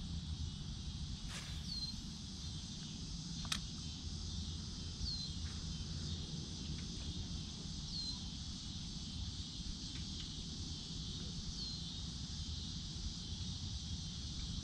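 Steady high-pitched chorus of evening insects, with a short chirp repeating about every three seconds over it. Two sharp clicks sound in the first four seconds.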